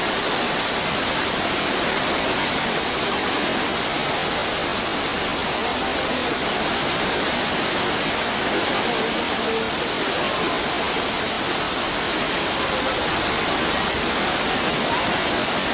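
Floodwater rushing in a fast torrent along a street, a steady, unbroken sound of churning water.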